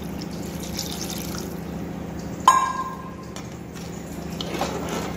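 Water pouring in a stream into simmering masala gravy in a frying pan. About two and a half seconds in, a single ringing metal clink, the loudest sound, then a steel spatula stirring and scraping the pan near the end.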